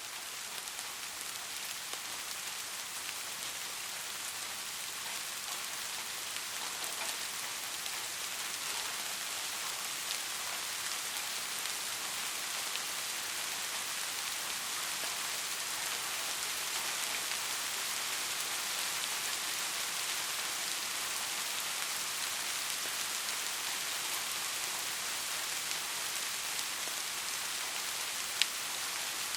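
Rain falling steadily: a dense hiss of drops with fine individual ticks, growing slowly louder through the first half, with one sharp tick near the end.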